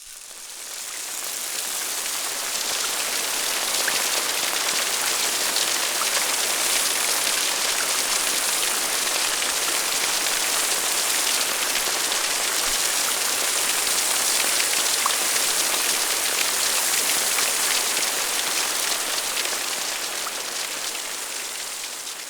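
Steady rain falling, a dense hiss of drops with a few single drops ticking out clearly. It fades in over the first few seconds and fades out near the end.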